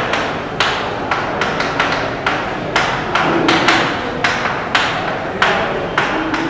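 Chalk writing on a blackboard: a quick, uneven string of sharp taps and scratches, about three a second, as letters are stroked out.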